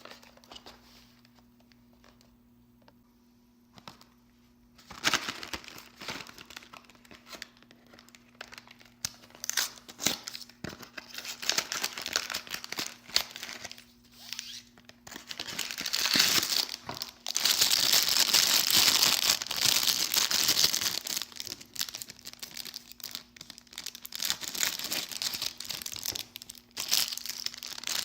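Candy packaging being crinkled and torn open by hand, in irregular bursts of rustling and tearing. It starts after about five seconds of near quiet and is loudest and most continuous in the middle stretch.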